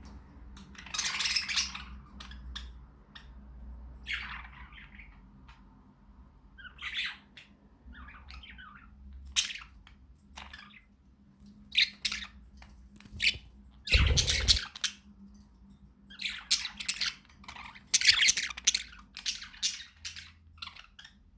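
Budgerigars chattering, with irregular bursts of squawks and chirps. The loudest burst, about two-thirds of the way in, comes with a low thump.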